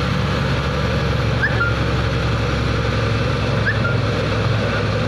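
Truck engine running steadily under load while climbing a hill road, heard from inside the cab, with the even rumble of the drive.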